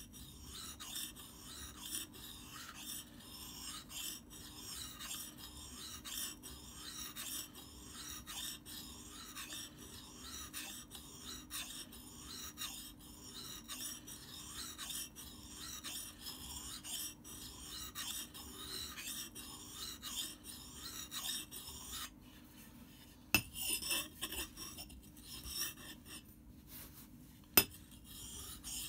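Axe blade scraped back and forth on a whetstone in steady rhythmic strokes, about three strokes every two seconds, grinding down a badly chipped edge. The strokes stop about three-quarters of the way through, and two sharp knocks follow as the axe is turned over against the stone.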